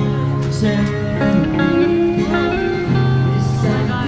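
Music led by guitar, with steady held notes that change every second or so.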